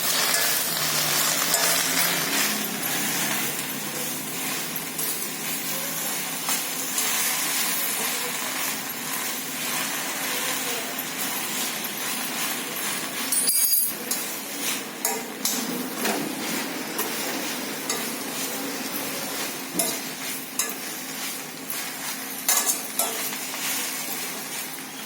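Pundi (gongura) leaves and green chillies frying in oil in a pan with a steady sizzle that slowly dies down. A spoon clinks and scrapes against the pan as they are stirred, more often in the second half.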